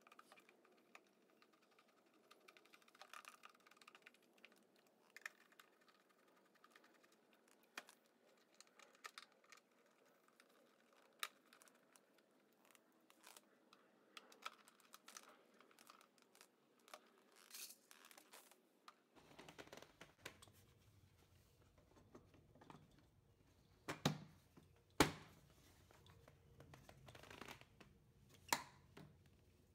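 Faint handling noise as plastic mower covers and parts are fitted by hand: scattered small clicks, rustles and taps, with a few sharper knocks near the end.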